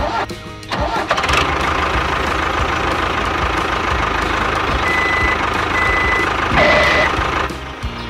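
Tractor engine starting a little under a second in and then running steadily, with three short high beeps a little under a second apart in the second half; the engine sound cuts off shortly before the end.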